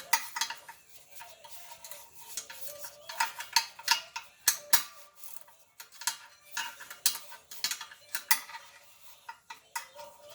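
Irregular metallic clinks and clicks of hand tools and metal parts being handled during air compressor pump assembly, coming in quick clusters with a few louder knocks midway.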